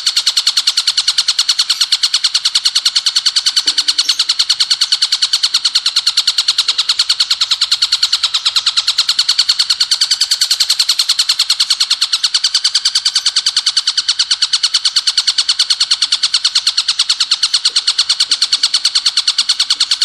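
Ciblek gunung, a small prinia, singing its rapid-fire 'bren' song: a loud, unbroken train of sharp, high notes repeated many times a second.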